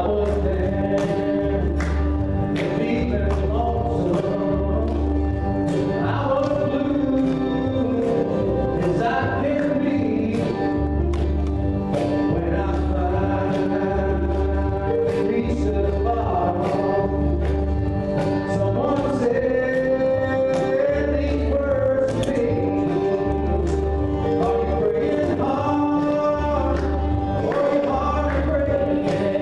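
A man singing a country gospel song while playing an acoustic guitar, over a low bass note that pulses about once a second.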